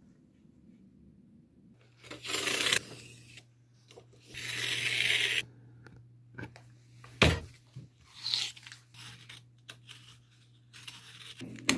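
Snap-blade craft knife cutting through corrugated cardboard, with cardboard tearing: a few rough strokes, the longest about a second, and a sharp click near the middle.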